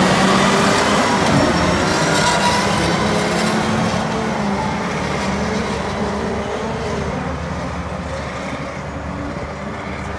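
Caterpillar 637C twin-engine scraper's diesel engines running as the machine drives past and pulls away, the sound fading steadily as it goes.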